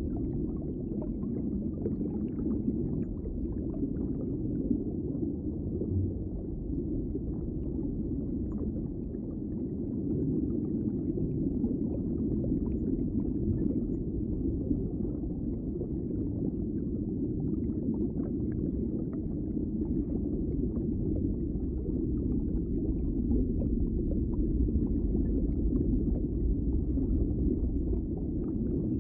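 Underwater ambience: a steady, muffled low rumble of water, with faint scattered crackles above it.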